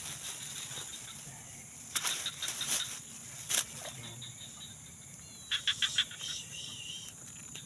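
A few short, sharp clicks and rustles as hands bait a fishing hook with a worm, with a quick cluster of clicks a little past the middle, over a steady high insect drone.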